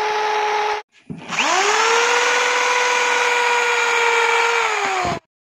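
Corded electric drill boring holes into areca palm wood sticks. The motor whine stops a little under a second in, then spins up again, runs steadily, sags slightly in pitch and stops shortly before the end.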